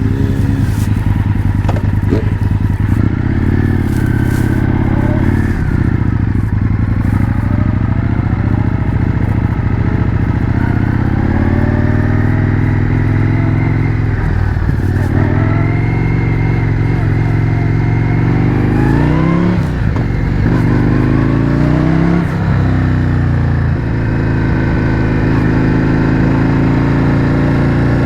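Indian FTR 1200 Carbon's V-twin engine through an Akrapovič exhaust while riding: the pitch rises as it pulls up through the revs, then drops back at gear changes, three times in the second half.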